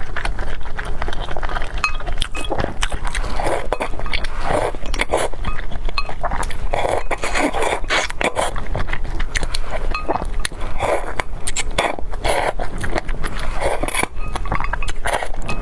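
Close-up wet slurping and chewing as strands of food are sucked up out of a broth, with chopsticks clinking and scraping against a glass bowl.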